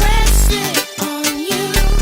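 Background music with a steady bass beat and a sung or melodic line.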